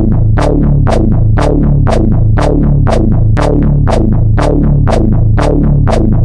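Japanese railroad crossing alarm bell ringing "kan-kan" at a steady two strikes a second, each strike a sharp ring that quickly fades, over a steady low hum.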